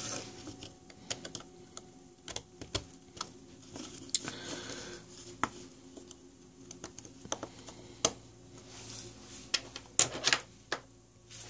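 Scattered light clicks and taps of spring terminal connectors being pushed down into place by hand on a solar charge controller's circuit board in its plastic case.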